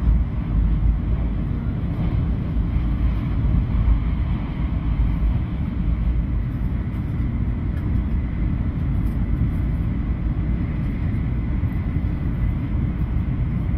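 Shinkansen 500 series high-speed train running at speed, heard inside the passenger cabin: a steady low rumble with a faint high whine over it.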